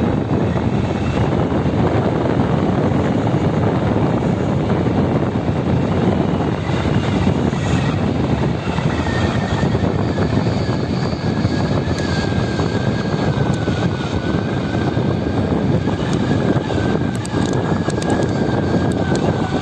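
Wind rushing over the microphone of a moving bicycle, a steady dense rumble with tyre noise from the road, and a faint steady whine joining about halfway through.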